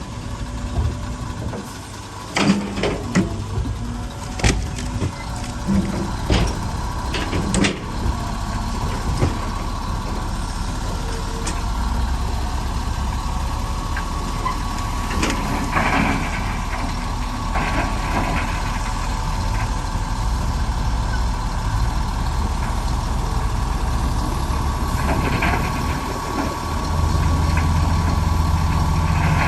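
Komatsu D65PX bulldozer running under load, its diesel engine a steady low rumble with a steady whine above it. Several sharp metallic clanks come in the first eight seconds, and the engine grows louder near the end.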